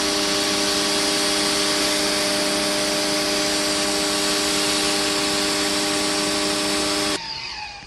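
Electric pressure washer running with its green nozzle: a steady motor hum under the hiss of the water spray. It cuts off suddenly about seven seconds in and the motor winds down.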